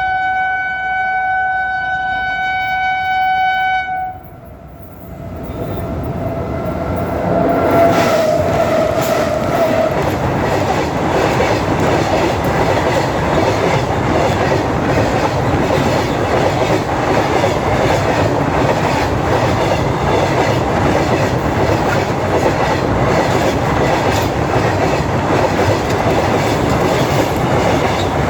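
Indian Railways electric freight locomotive sounding its horn in one long blast of about four seconds, then a second, fainter blast a few seconds later. The passing train then makes a steady loud rumble, with wheels clacking over rail joints.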